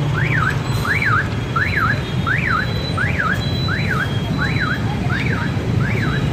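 An electronic alarm wailing up and down in pitch, about three sweeps every two seconds, over a steady low hum and the hiss of oil deep-frying.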